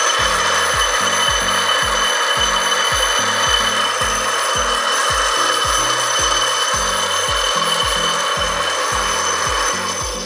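Mini metal lathe running with its faceplate spinning: a steady, loud motor and drive whine with a few high tones, which cuts off at the very end.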